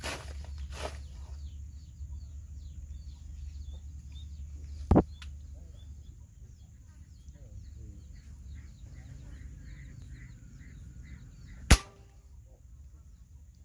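Two sharp air rifle shots about seven seconds apart, the second with a short ring after it, over small birds chirping steadily.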